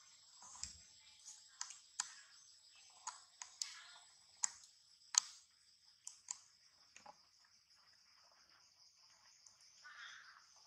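Faint, steady high-pitched insect hum with about a dozen sharp clicks scattered through the first seven seconds and a soft, short sound near the end.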